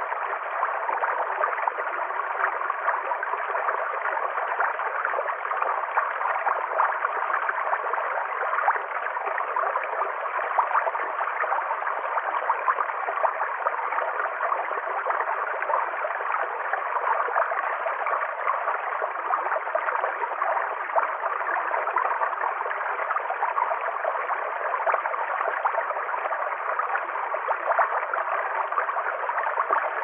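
Small rocky stream spilling over stones in a short cascade: a steady, unbroken rush of water.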